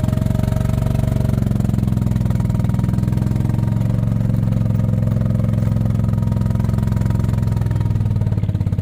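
A small vehicle engine running steadily at low speed, a loud, even drone with only slight shifts in pitch.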